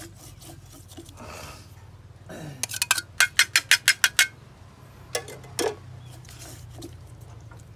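A utensil clinking against a dish while fish is tossed in its marinade: a quick run of about eight sharp taps in the middle, then two more single clinks.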